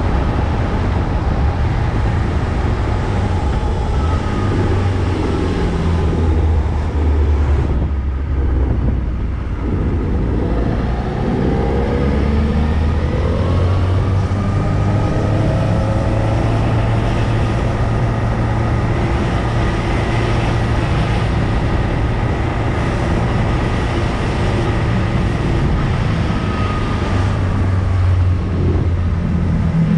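Motorcycle engine running while riding, over a steady rush of noise. About eight seconds in the engine briefly drops off, then the revs rise again as it accelerates and settle to an even pull.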